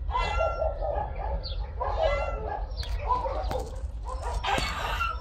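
A cat meowing several times, each call short and spaced about a second or more apart, over a low steady rumble.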